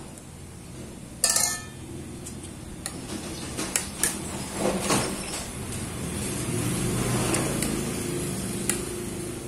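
Metal spoon clinking and scraping against a ceramic plate of fried rice, a few sharp clinks, the loudest about a second in.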